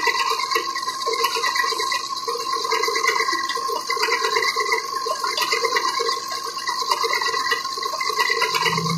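Gear-cutting machine running with cutting fluid pouring and splashing steadily over the work, under a constant hiss and a steady whine. A low hum comes in just at the end.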